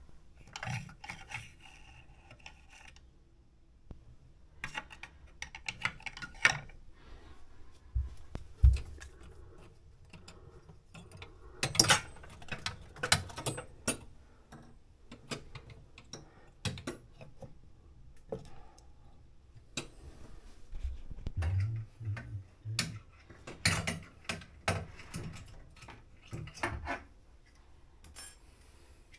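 Irregular clicks, clinks and knocks of hand tools and small hard parts being handled during repair work, with a few dull thumps.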